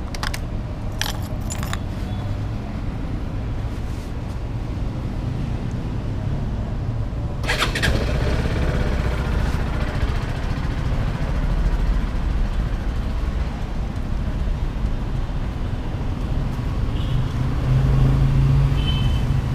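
Motorcycle engine idling with a steady low rumble; a few sharp clicks in the first two seconds, and a brief burst of noise about seven and a half seconds in, after which the rumble grows stronger.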